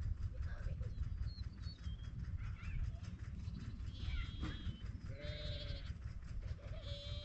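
Sheep bleating, a few short calls about four and five seconds in and again near the end, over a steady low rumble.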